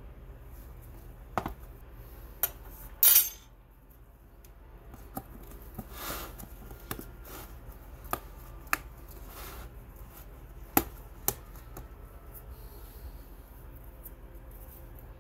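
Light clicks and knocks of a plastic pigment tub and a metal spoon being handled on a work surface. The loudest is a short sharp scrape about three seconds in, with a soft rustle a few seconds later.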